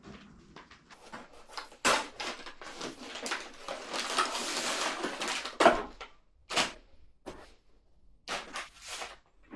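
Handling noises: a quick run of clicks and knocks, with a dense rustling stretch in the middle and a few separate sharp knocks toward the end.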